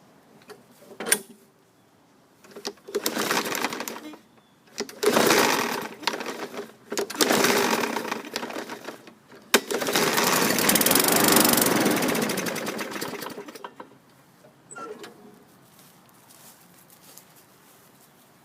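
Murray 21-inch push mower's Briggs & Stratton 500E engine being pull-started on a shot of starting fluid. It fires in three short bursts, then runs for about four seconds and dies away. Running only on starting fluid is the sign of a carburetor that needs cleaning.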